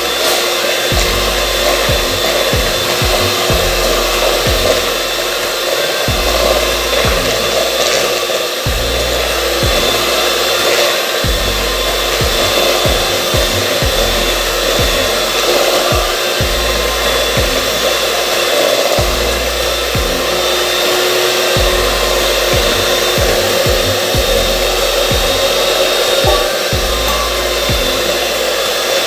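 Electric hand mixer running steadily, its beaters churning thick cream-cheese batter in a stainless steel bowl, with irregular knocks as the beaters hit the bowl.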